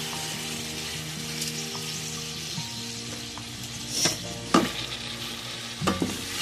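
Hot oil and spice masala sizzling steadily in a pot of fried chicken with raw rice just added. About four seconds in, a spoon starts stirring the rice, scraping and knocking against the pot a few times.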